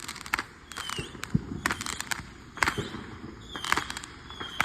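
Small fireworks going off in an irregular string of sharp pops and crackles, a few at a time, with brief high falling whines between some of them.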